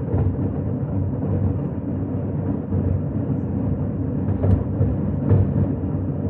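Fireworks shells bursting in rapid succession, merging into a continuous low rumble, with a couple of sharper cracks near the end.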